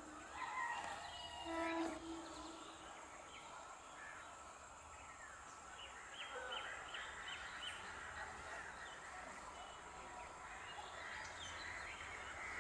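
Horn of an approaching EMU electric local train, one short steady blast about a second and a half in. After it comes a faint steady hum with scattered high chirps while the train draws closer.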